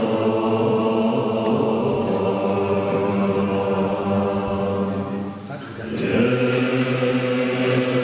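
Tibetan Buddhist monks chanting prayers in unison on a low, steady pitch. The chant thins out briefly about five and a half seconds in, as at a breath, then carries on.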